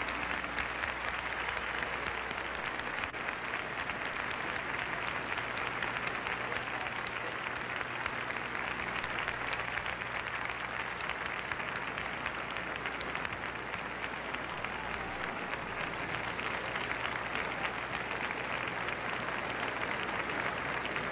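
Large audience applauding steadily, a dense, even clapping that neither builds nor dies away.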